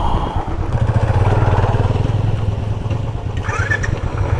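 Single-cylinder motorcycle engine running steadily at low revs, with an even, rapid low thudding.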